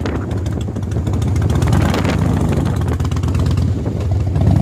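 Motorcycle engine running at road speed, heard from on the bike, with wind rushing over the microphone.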